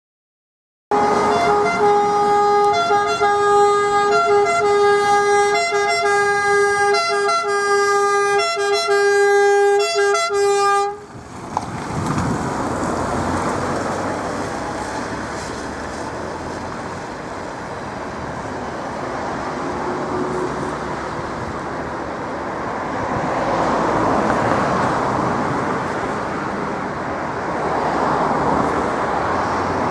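FIAMM pneumatic air-horn siren of an ambulance sounding its alternating two-note call, which cuts off abruptly about ten seconds in. The rest is road traffic and engine noise rising and falling.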